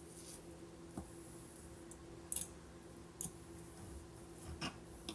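A few faint, scattered clicks and light taps from shredding cooked chicken breast in a bowl. A faint steady hum runs underneath.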